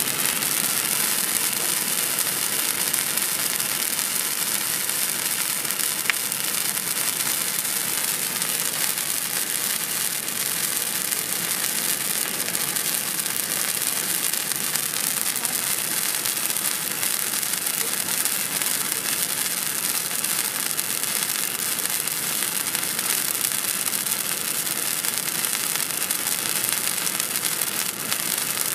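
Fluorescent pyro stick, a handheld sparkler-type firework, burning and spraying sparks with a steady high-pitched hiss and fine crackling.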